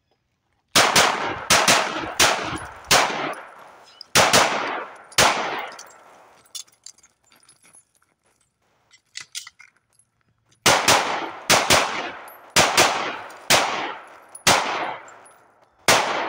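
HK P2000 9mm pistol fired in two strings of rapid shots, each shot sharp with a short echoing tail. The strings are separated by a pause of about five seconds for an emergency reload, with a few faint clicks in the gap.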